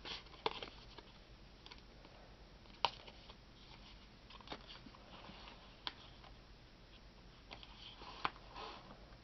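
Faint handling of card and paper: soft rustles with a few sharp clicks as an insert is slid out of a small paper envelope and the pages of a wire spiral-bound journal are turned.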